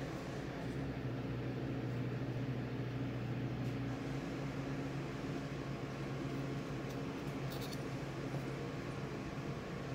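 A steady low mechanical hum with an even hiss, like a fan or appliance running.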